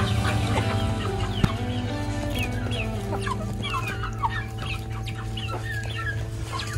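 Domestic hens clucking and making short calls in a steady, irregular chatter, over background music of held chords.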